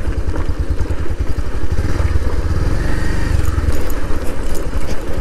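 Motorcycle engine running at low speed over a rough, stony dirt track, a steady low engine note with scattered light clicks and clatter.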